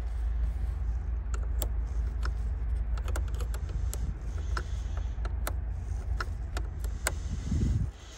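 Metal spanner clicking and clinking on a truck battery's terminal clamp nut as the clamp is tightened after reconnecting the battery, in short irregular clicks. A steady low rumble runs underneath.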